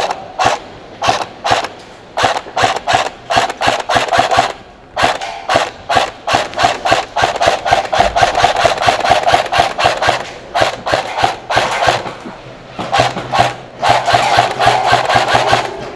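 Airsoft gun firing in rapid strings of sharp shots, with a mechanical whir under the fire. The shots come in several strings with short pauses between them; the fire is densest in the middle and again near the end.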